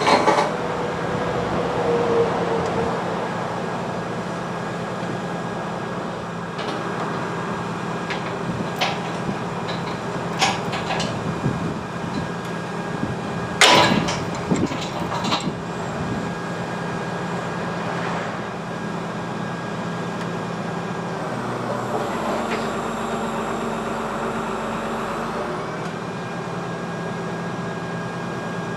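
Link-Belt 2800 excavator running steadily, with several sharp metal clanks partway through, the loudest about halfway in, as the jib boom and its chains are rigged on the bucket. The engine note shifts for a few seconds near the end as the machine works.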